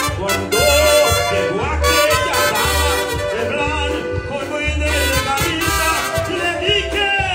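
A man singing into a microphone with a live band of accordion, guitars, bass and drums, over a heavy recurring bass pulse.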